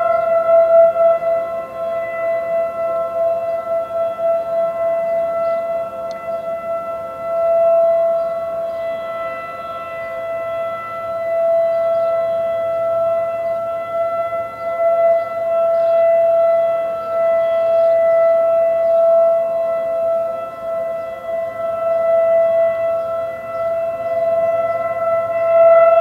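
Outdoor civil defense warning sirens sounding a steady wail at constant pitch during a monthly test, swelling and fading in loudness.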